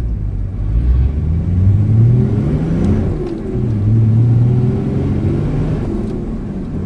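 Nissan Patrol Y60's engine heard from inside the cabin, pulling away from a standstill: the engine note rises, drops back with a gear change about three seconds in, then climbs again and settles to a steady cruise.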